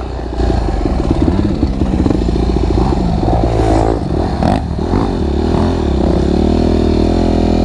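Motocross bike engine running and revving as the bike rides along the dirt track, getting louder about half a second in, with a couple of brief knocks about halfway through.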